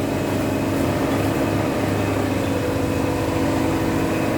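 Horizontal cardboard baling press running, a steady machine hum that holds the same pitch and level throughout.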